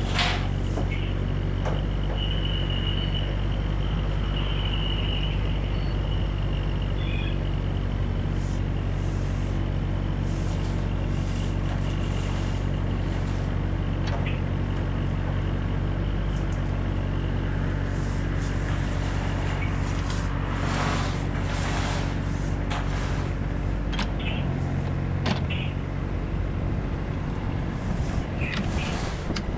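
A mini excavator's diesel engine running steadily under load as its arm pulls a cable that drags new plastic water line through the old pipe; the engine note shifts about 24 seconds in. Scattered light clicks and knocks sound over it.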